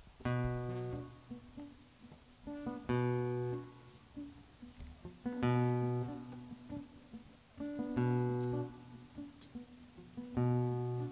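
Acoustic guitar playing the opening of a song: a strummed chord about every two and a half seconds, five in all, each left to ring and fade, with lighter picked notes in between.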